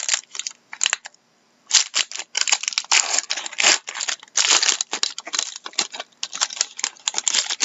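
Trading card pack wrapper being torn open and crinkled by hand: irregular crackling and tearing, with a short pause a little over a second in.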